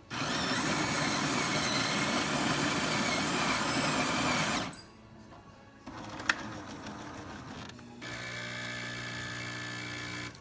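Jura E8 super-automatic espresso machine starting a shot. Its built-in grinder runs for about four and a half seconds and stops. After a quieter mechanical stretch with a sharp click, the pump sets in with a steady hum near the end.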